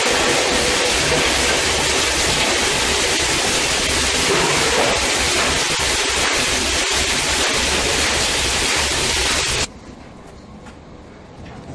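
Raj Electricals RE 25 plastic grinder running loud: a dense, steady rushing din with a faint steady hum. Just under ten seconds in the sound drops abruptly to a much quieter stretch with a few faint clicks.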